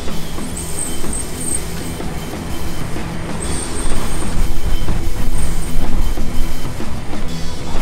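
Losi DBXL-E 1/5-scale electric RC car driving fast across grass, mixed with background music.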